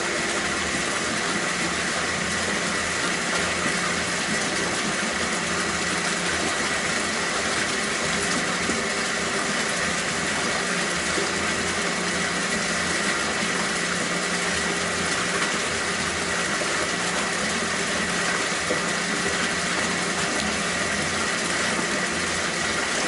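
Steady hum of a water pump with running water from an aquaponics system, unchanging throughout, with a thin high whine over it.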